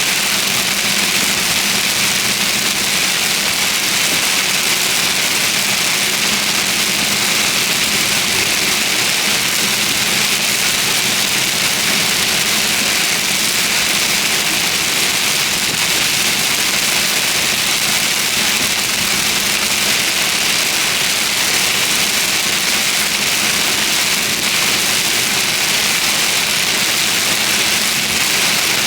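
Heavy rain hitting a vehicle, a steady dense hiss, with a faint engine hum underneath.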